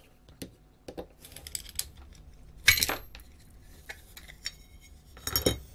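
Small metallic clicks and clinks of screws, a screwdriver and a finned metal module housing being handled as the housing is unscrewed, with two louder clattering bursts, one near the middle and one near the end.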